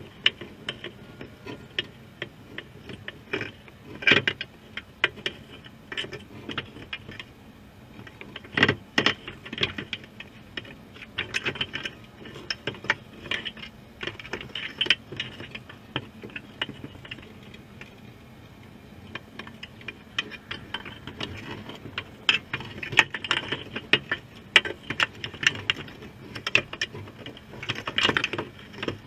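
Crab claws and legs clicking and scraping on the wire mesh of a crab trap, heard underwater: irregular sharp clicks and brief rattles, with louder clusters about four seconds in, near nine seconds and near the end.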